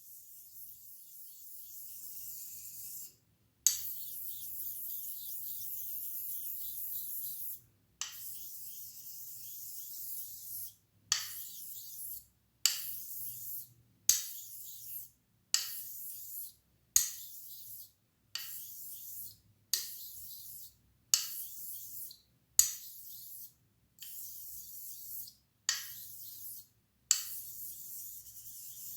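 Straight razor drawn across a Nakayama Karasu awasedo, a Japanese natural finishing whetstone, giving a high, hissing scrape. The first two strokes are long, several seconds each. After that come short strokes about every second and a half, each starting with a small tick.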